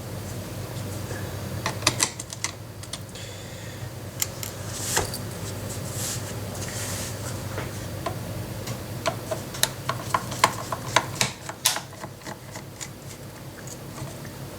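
A screwdriver undoing the small screws in the bottom plate of an airsoft AEG's pistol grip, with scattered light clicks and taps of the tool and parts being handled, a cluster of quick clicks about two thirds of the way in, and a brief squeak near the start.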